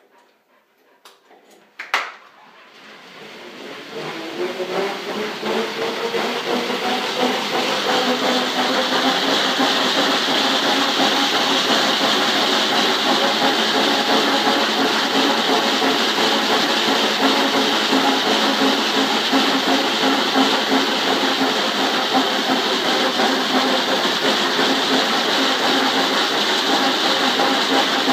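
Dog treadmill starting after a sharp click, its whine rising in pitch over a few seconds as it gets up to speed, then running steadily with a rattling hum.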